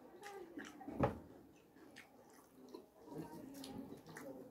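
Close-miked eating sounds: fingers pulling apart mutton on a plate, with small wet clicks and chewing, and one sharp knock about a second in.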